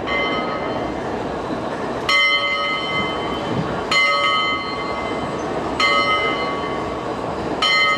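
Bell on Southern Pacific steam locomotive 1673, rung by a pull on its cord: five strokes about two seconds apart, each ringing on and fading before the next.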